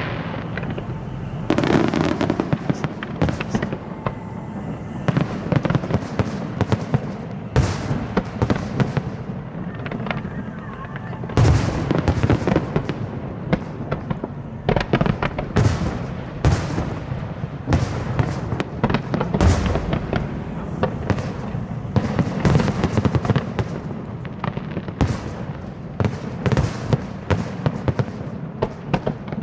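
Aerial fireworks bursting overhead in a rapid, irregular barrage of bangs and crackles, with a continuous rumble of echoing reports between them.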